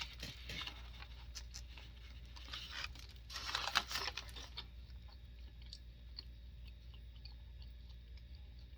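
A person chewing food close to the microphone: short wet clicks and light crunches, busiest in the first half with a louder patch around the middle, then softer and sparser.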